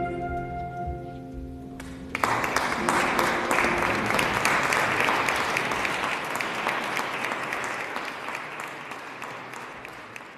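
The last held chord of the closing hymn dies away, and about two seconds in the congregation breaks into applause that slowly tapers off near the end.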